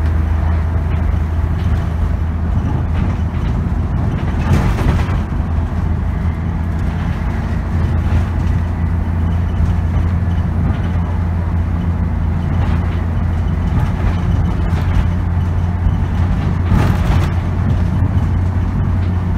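Dennis Trident double-decker bus's engine and drivetrain running under hard throttle, heard from the upper deck as a steady deep drone. Two brief hissing bursts come through, about four seconds in and near the end.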